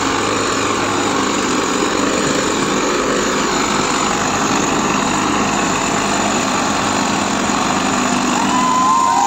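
Swaraj tractor's diesel engine running hard under load, pulling a trolley up a steep dirt slope until its front wheels lift. Onlookers start cheering and shouting near the end.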